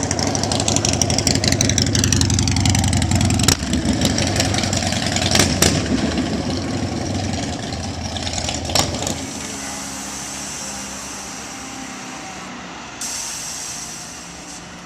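Custom motorcycle's engine running loud, with a few sharp clicks along the way; about nine seconds in it drops to a much quieter, thinner sound that fades out.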